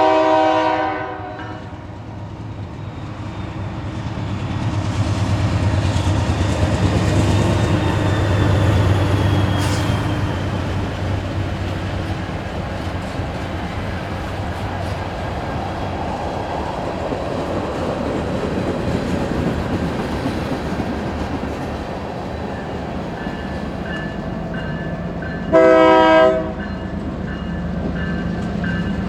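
Nathan Airchime K3LA three-chime locomotive horn finishing a blast in the first second, then a train rolling past with wheel-and-rail clatter and a low diesel rumble. About 25 seconds in, a second locomotive's K3LA horn gives one short blast.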